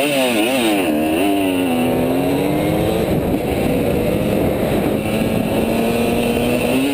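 Dirt bike engine under way, heard from the bike itself: revving up and down several times over the first couple of seconds, then settling to a steady pitch while cruising, with rushing wind and road noise.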